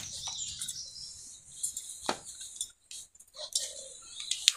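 Metal pots and bowls clinking and knocking as they are handled, a few sharp clinks about two seconds in and near the end, over faint high chirping.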